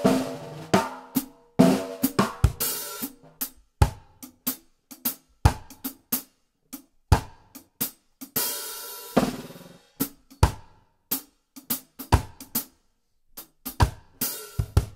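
Stripped-down cajon drum kit played in a groove: stick strokes on a snare drum and hi-hat, with a cajon as the kick drum underneath. The hi-hat rings out in longer washes a few times, strongest around the middle.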